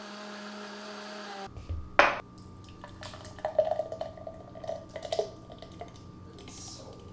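A steady motor hum cuts off about a second and a half in, then a sharp click and a few seconds of light clinking and knocking of hard objects.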